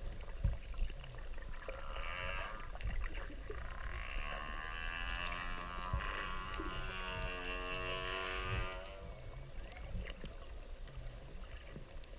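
Whale calls: a fainter call about two seconds in, then one long call with many overtones from about four seconds in that lasts about five seconds, over a steady low rumble.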